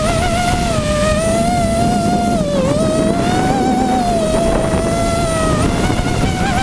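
Hexacopter's six Robbe 2216 brushless motors and propellers whining in flight. The pitch wavers with the throttle and dips briefly about two and a half seconds in, over a steady low rush of prop wash and wind.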